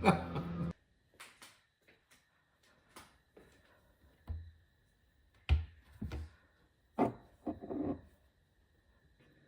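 Scattered light knocks and clicks, about a dozen spread over several seconds with quiet gaps between them; the strongest come about halfway through and a little later.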